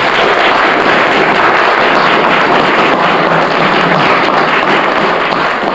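Audience applauding at the end of a talk, a steady wash of many hands clapping.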